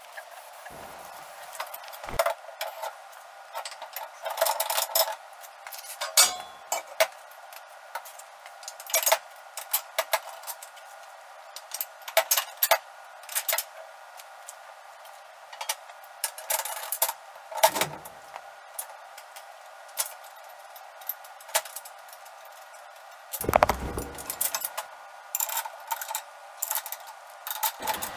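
Irregular metallic clinks and clanks from steel frame parts and tools being handled and fitted together, with a heavier clunk a few seconds before the end.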